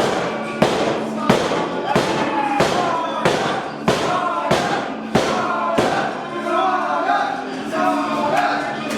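Wrestling entrance music: a sung melody over heavy beats about every two-thirds of a second, which drop out about six seconds in while the singing carries on.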